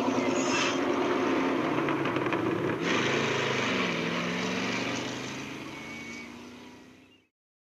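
Bus engine running as the bus pulls away. About three seconds in, the engine note rises as it picks up speed, then the sound fades out as the bus drives off.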